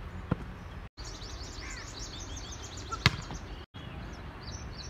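A volleyball struck hard by a hand: a faint smack just after the start and a loud sharp smack about three seconds in. Birds chirp throughout, and the sound drops out briefly twice where the clip is cut.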